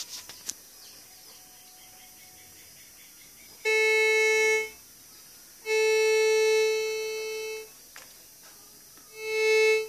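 MD-5008 metal detector beeping through its search coil under test: after two light clicks, three steady buzzy tones sound, one about a second long, a longer one of about two seconds that fades, and a short one swelling near the end. The tones are the detector's signal, showing that the repaired small coil is responding.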